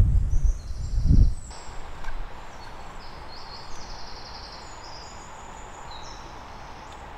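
Conifer woodland background with small birds giving short, high, thin calls, over a steady faint hiss. For the first second or so, loud low thudding and rumbling sits under it, then stops abruptly.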